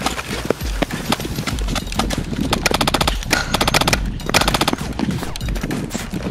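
Rapid automatic gunfire in two bursts, about two and a half and four and a half seconds in, each under a second, amid scattered single shots and knocks.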